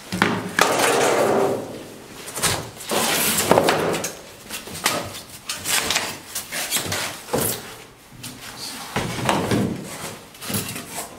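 Unpacking flat-pack steel cabinet parts: plastic wrapping and foam sheet crackling and rustling, cardboard scraping, and thin sheet-steel panels knocking and rattling as they are lifted out of the box, in an uneven run of sudden knocks and rustles.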